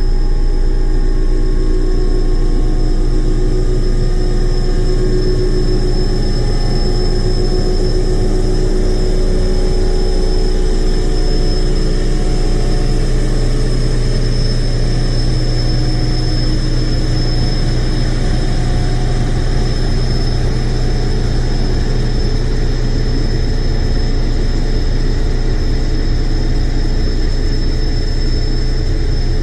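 Heavy truck engine idling steadily, with a constant high whine over the low rumble.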